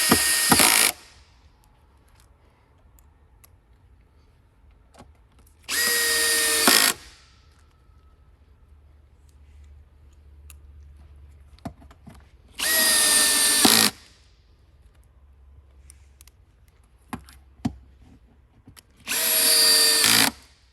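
Power drill driving screws into a particle-board desktop: four short runs of about a second each, roughly six seconds apart, each a steady motor whine that stops abruptly as the screw seats. Faint clicks of handling come in between.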